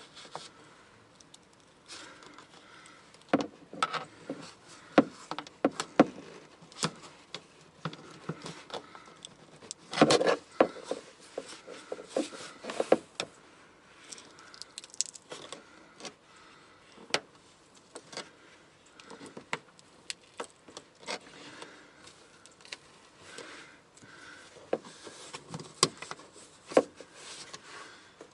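Flathead screwdriver prying and scraping around the fuel pump access cover, breaking the sticky sealant holding it down, with irregular clicks, knocks and rattles; the busiest stretches are a few seconds in and around ten seconds in.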